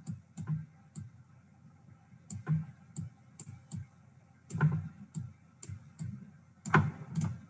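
Computer mouse button clicks, about fifteen in irregular singles and quick pairs, made while drawing lines and dots on screen with a pen tool.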